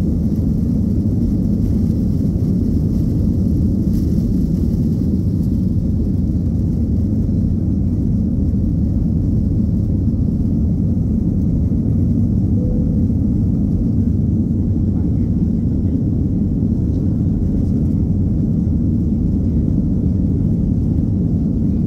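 Airbus A320-family airliner's jet engines at takeoff thrust, heard from inside the cabin as a loud, steady low rumble through liftoff and the initial climb.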